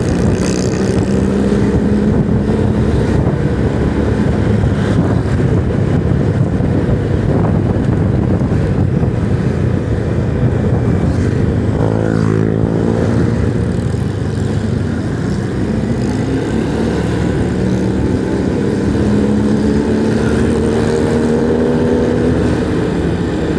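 Motorcycle engine running while riding along a road, over steady road noise; its pitch falls and rises with speed, dipping briefly about halfway through and climbing steadily in the last few seconds.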